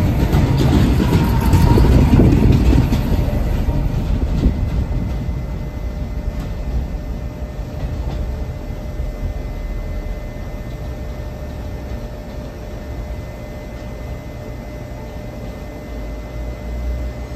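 Overhead-line maintenance railcar pulling out and moving away, its running gear clicking and rumbling on the track. Loudest in the first few seconds, then fading to a steady low rumble as it recedes.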